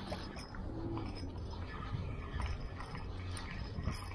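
Light, scattered clicks and clinks of hands handling a spinning reel, its line and lure.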